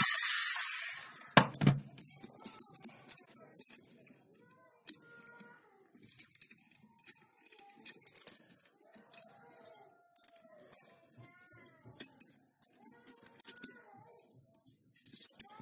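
Electric drill motor winding down at the start, then a sharp knock about a second and a half in and scattered light clinks and rattles of a bent steel-wire frame being handled against a wooden log.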